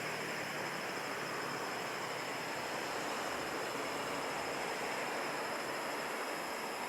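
Steady outdoor night ambience: an even hiss with a thin, steady high-pitched insect chirr above it.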